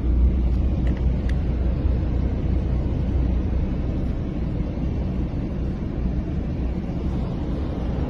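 Steady low rumble of a moving vehicle heard from inside the cabin: engine and tyre noise at an even level.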